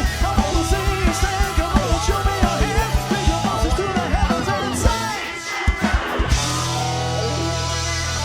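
Live country-rock band playing with a fast, driving drum beat of about four hits a second, vocals over it. About five seconds in, the beat breaks off into a few last drum hits, and the band holds a ringing closing chord.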